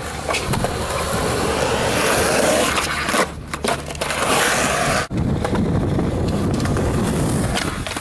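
Skateboard wheels rolling over concrete with a steady grinding rumble, with a few sharp clacks of the board. The sound breaks off abruptly twice, about three and five seconds in, as clips change.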